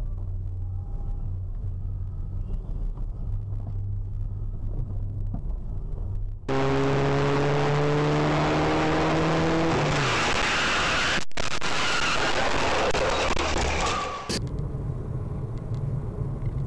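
Car engine and road noise heard from inside a moving car: a steady low rumble, then a sudden louder stretch with a rushing noise and an engine note that climbs slowly and falls away, then back to the quieter rumble near the end.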